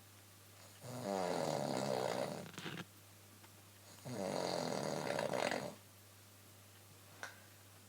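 A woman snoring in her sleep: two long snores, each about two seconds, a couple of seconds apart.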